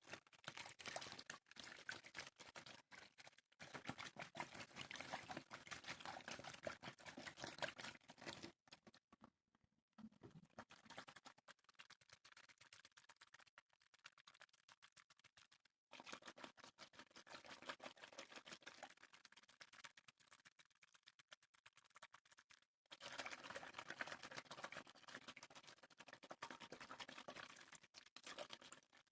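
Fast, crackly water sounds made close to the microphone, dense and rapid, coming in stretches of several seconds with brief pauses between them.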